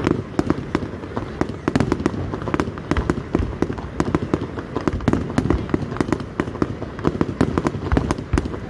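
Fireworks display going off: a rapid, continuous string of bangs and crackles, several a second.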